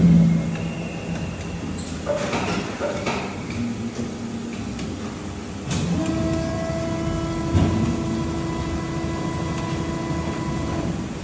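Plastic injection moulding machine cycling a mould on trial: a few clanks and knocks, then from about six seconds in a steady machine whine that holds for about five seconds and stops near the end.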